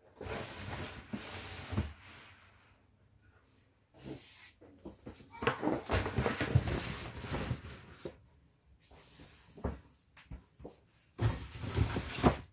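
Paper carry bags and a paper box being handled and set onto a cabinet shelf: crinkling paper and knocks, in a few bouts, with the sharpest knocks near the end.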